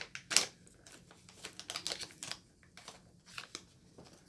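Cosmetic packaging being handled and opened: a sharp click about half a second in, then a run of small clicks and crinkling rustles.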